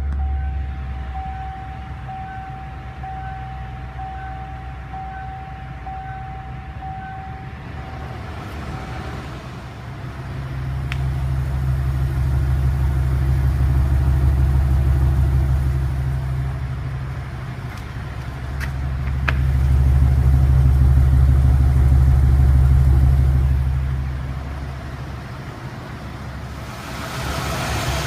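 1989 Lincoln Town Car's engine running with a misfire that has persisted after a new cap, rotor, plugs, wires and coil. It swells louder twice, each time for about six seconds.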